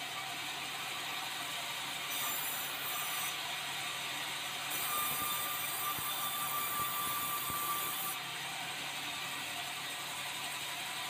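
Sawmill bandsaw running steadily while red meranti boards are fed through it. A thin, steady whine joins in about halfway through for about three seconds, and the sound grows slightly louder while it lasts.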